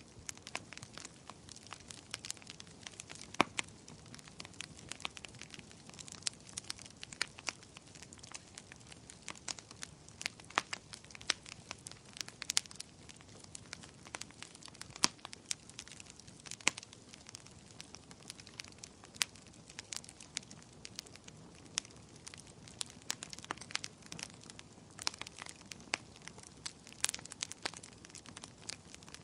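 Wood fire burning with irregular sharp crackles and pops over a low steady hiss of flames.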